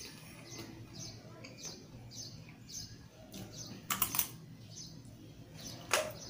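Crisp crunching as a whole raw cucumber is bitten into, a cluster of crunches about four seconds in and another near the end as it is chewed. Small birds chirp repeatedly in the background.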